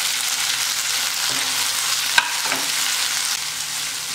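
Small onions, garlic and chopped tomatoes sizzling in hot oil in a non-stick pan while being stirred with a spatula, with one sharp tap of the spatula on the pan about two seconds in.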